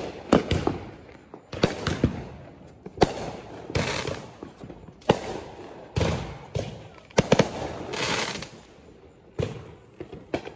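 Fireworks going off in an irregular string of sharp bangs, about one a second, with a longer burst of noise about eight seconds in.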